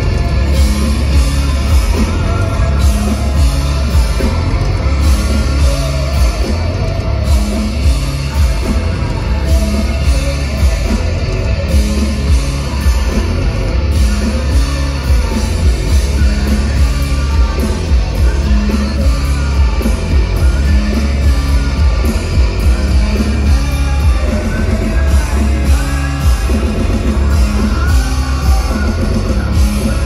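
Live rock band playing loud, with electric guitar, drums, heavy bass and a singer.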